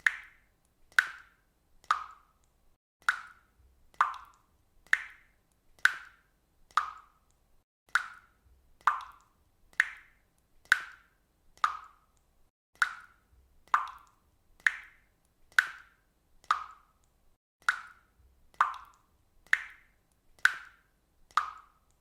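Water dripping steadily, one drop about every second, each a short plop that dies away quickly.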